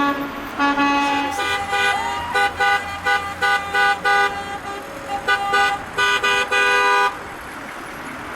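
Several vehicle horns honking together at different pitches: long held blasts, then a run of short toots at about two a second, all stopping about seven seconds in, with traffic noise going on after.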